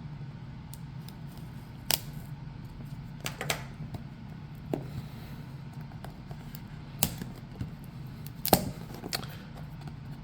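Graphics-card retail box being handled and pried open: scattered sharp clicks, taps and short scrapes of cardboard packaging, a few seconds apart, the box not opening easily.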